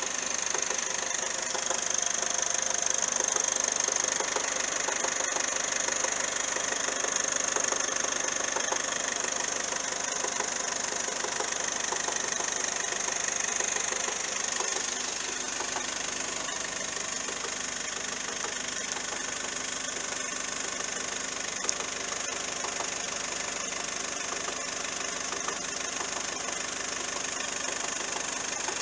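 Car engine idling with a steady high-pitched whine over the running. This is the strange noise in an engine fitted with a new timing belt kit but its original water pump.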